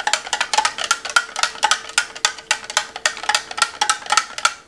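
A spoon stirring drink-mix powder into a cup of thickened water, clinking against the side of the cup about five times a second.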